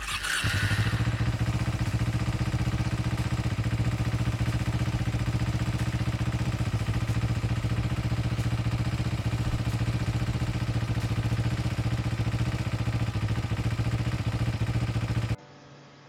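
Royal Enfield Himalayan's single-cylinder engine running at a steady cruise, heard close up from on the moving motorcycle, its pitch holding level. The sound cuts off suddenly near the end.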